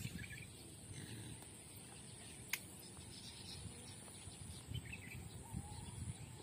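Faint birds chirping over a steady high hiss and low rumble, with a single sharp click about two and a half seconds in.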